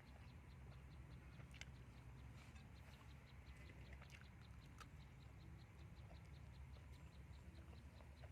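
Near silence: a faint low hum with a faint, regular high-pitched ticking about six times a second and a few scattered light clicks.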